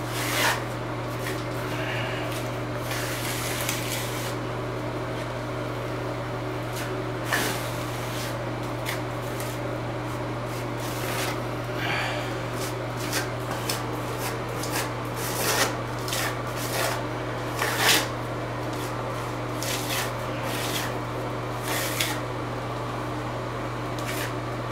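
Liquid RedGard waterproofing membrane being brushed and rubbed over fiberglass mesh tape in a shower corner: a run of short, irregular rubbing and scraping strokes over a steady low hum.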